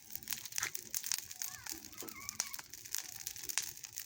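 Freshly lit bonfire of dry grass and brush crackling, with a steady scatter of sharp snaps and pops as the dry material catches.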